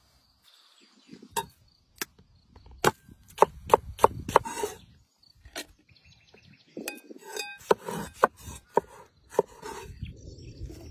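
Kitchen knife striking a wooden cutting board: a series of sharp, irregular knocks, coming in quick runs, as a tomato is cut and diced.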